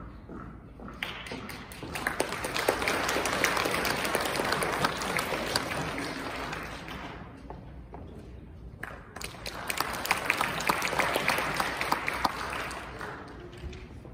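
Audience applauding in two spells: the first starts about a second in and runs about six seconds, and after a short lull a second spell runs from about nine seconds to near the end.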